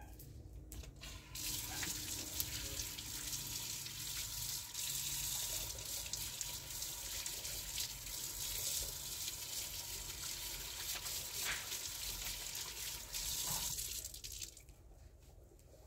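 Water running steadily, starting about a second in and stopping a little before the end.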